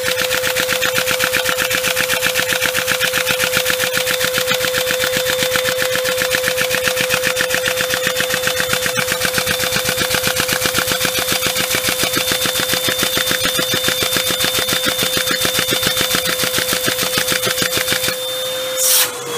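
Four-valve Lego vacuum engine running fast on suction from a vacuum cleaner: its Lego pistons, valves and chain-driven camshafts clatter in a rapid, even rattle over the vacuum cleaner's steady whine. The rattle stops shortly before the end while the vacuum keeps running.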